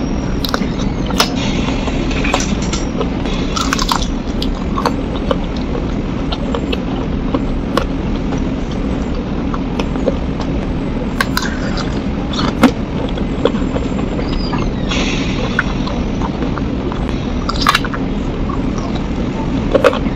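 A person chewing and biting on spicy soy-braised chicken feet, with many scattered sharp clicks and a few short wet, noisy smacks, over a steady low hum.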